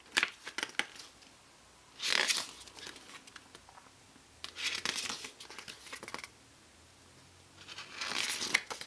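Pages of a sturdy paper CD booklet being turned by hand: a crisp papery rustle with each turn, about four times, with short quiet gaps between.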